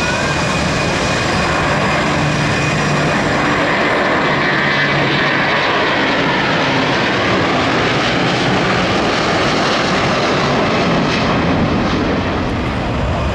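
Airbus A330 jet engines at takeoff thrust as the airliner lifts off and climbs away: a loud, steady rush of engine noise with a high whine, and a tone in it sliding lower midway through.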